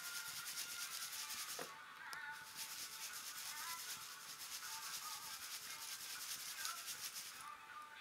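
Hearth ash being sifted through a metal mesh sieve, a steady hissing rustle pulsing with quick shaking strokes. Faint background music.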